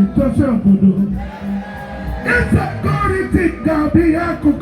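Loud music with a voice singing over it.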